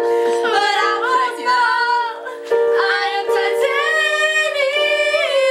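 Several women's voices singing a pop song together, holding long notes over steady sustained chords, with a brief drop about two and a half seconds in.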